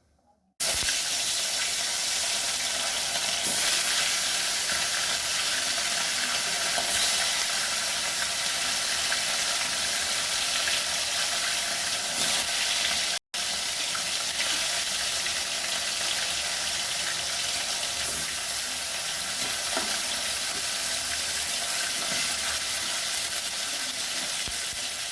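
Pieces of fish frying in hot oil in a pan, a dense, steady sizzle that starts suddenly and breaks off briefly once about halfway through.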